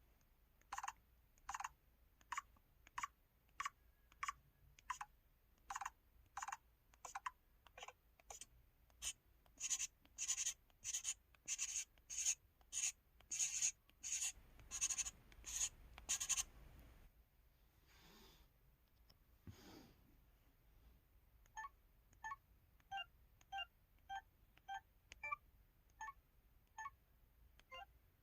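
LG-KU2800 mobile phone keypad sounds: the 'Writing' button tone, a short pencil-scratch stroke for each key press, coming faster after about eight seconds. After a pause of a few seconds the 'Orgol' (music box) button tone follows, a short tinkling note for each key press.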